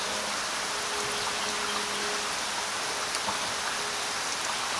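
Steady rain falling, an even hiss of drops with no single sound standing out.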